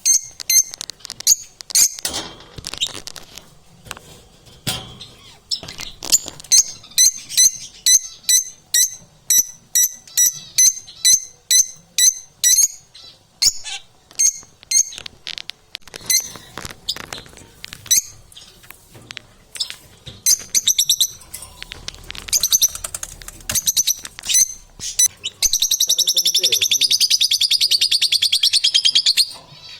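Lovebirds calling in a rapid series of sharp, high-pitched chirps, about two or three a second, then breaking into a continuous fast chattering trill near the end.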